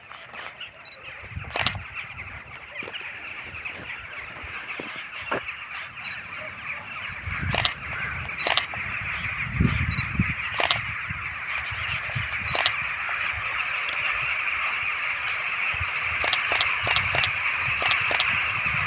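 A huge flock of rooks cawing together in a dense, continuous chorus that grows louder as the birds pour overhead. Scattered sharp clicks from a DSLR camera shutter cut through it.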